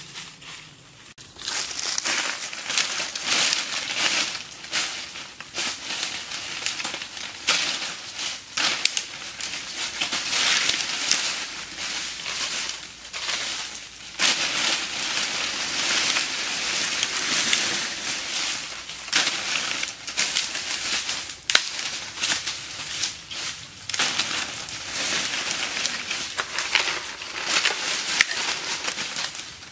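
Dry fallen leaves and dead sticks crunching, rustling and crackling as a person walks over them and handles dry branches. The crackling starts about a second in.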